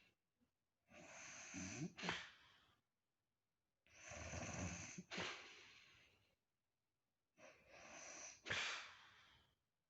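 A woman snoring in her sleep: three long snores about three seconds apart, each ending in a sudden sharp catch.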